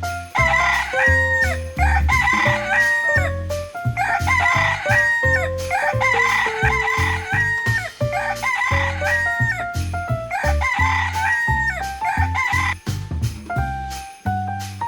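Rooster crowing over and over, one cock-a-doodle-doo after another.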